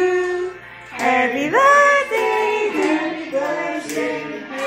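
A small group of people singing a birthday song together: a long held note ends about half a second in, and after a short pause the singing starts up again.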